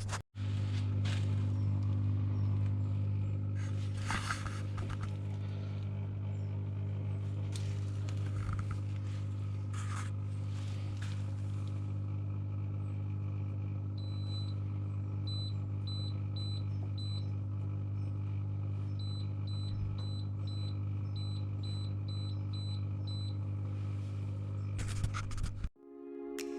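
Repaired Lay-Z-Spa pump running with a steady low hum, quiet and without grinding, on a new impeller and bushes. A few light knocks come through it, and midway a run of short, high electronic beeps. The sound cuts off just before the end.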